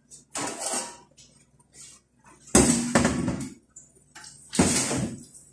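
Metal kitchenware clattering: a stainless steel tray and cooking utensils being handled and set down, in three separate bursts, the middle one the loudest.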